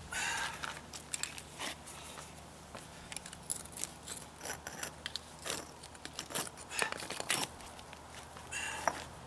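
Brick pavers scraping and clicking against each other as they are worked loose and lifted out of the driveway by hand. The clicks and scrapes are short and irregular, with a longer scrape at the start and another near the end.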